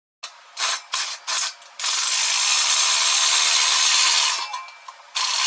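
A tool working metal: a few short bursts, then a steady mechanical run that stops briefly near the end and starts again.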